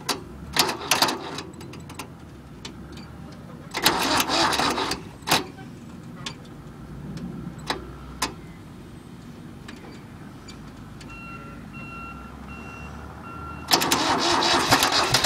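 A pulsing electronic beep sounds for a few seconds. Then, near the end, the tractor's starter motor begins cranking the cold engine with a fast, steady rhythm, and the engine does not catch. Scattered clicks and a short burst of noise come earlier, about four seconds in.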